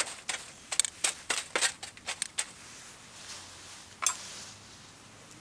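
Wood campfire crackling: a quick run of sharp pops and cracks for the first couple of seconds, then a soft hiss with one more loud pop about four seconds in.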